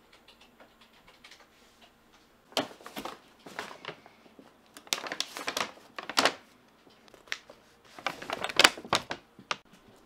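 Large brown paper shopping bag crinkling and rustling as it is picked up by its handles and set down, in four spells of crackling, the loudest near the end.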